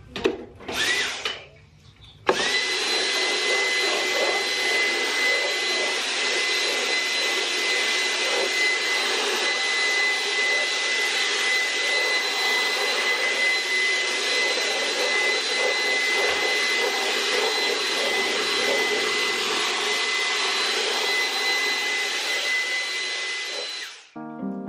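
Dyson cordless stick vacuum with a crevice tool switching on about two seconds in and running steadily with a high whine. It cuts off suddenly near the end.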